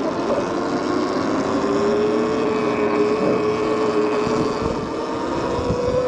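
Electric bike motor whining steadily, its pitch rising slowly as the bike gains speed, over a constant rush of wind and tyre noise.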